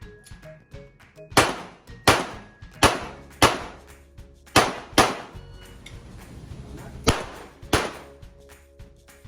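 Eight handgun shots fired as four quick pairs, the two shots of each pair about half a second apart, each a sharp crack with a short ring-off.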